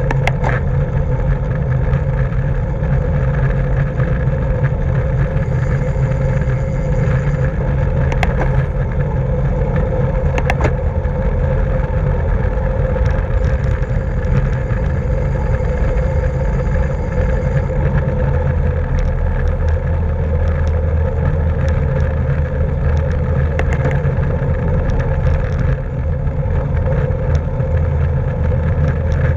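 Steady, loud rush and rumble of wind over a camera microphone carried along at racing speed on a bicycle, with a few brief sharp clicks.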